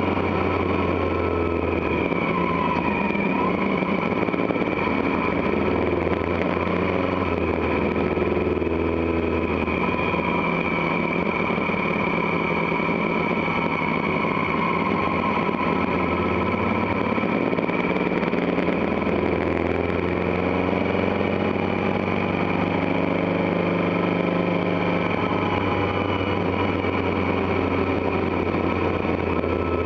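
Motorcycle engine running at steady road speed, its pitch easing and rising a little as the bike slows and speeds up, over a constant rush of wind and road noise.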